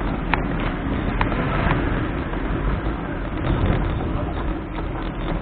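Bicycle ride heard from a bike-mounted camera: steady wind and road rumble on the microphone, with a few sharp clicks and rattles from the bike.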